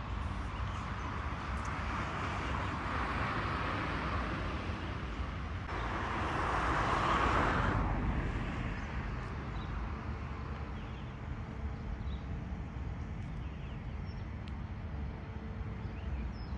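Car road noise: a steady low rumble with a tyre hiss that swells a couple of seconds in, louder again just past the middle, then eases off.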